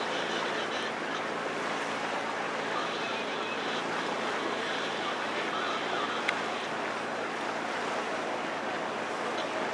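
Steady rush of wind and water on a slowly moving sailboat, with a faint low hum under it. A single sharp click about six seconds in.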